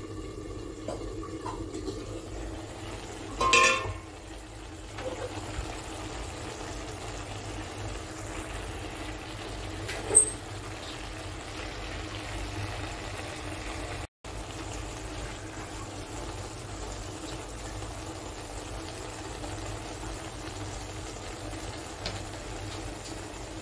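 Fish curry bubbling steadily in a steel kadai on a gas burner. About three and a half seconds in the steel lid clanks with a short ring, and a sharp click follows near ten seconds.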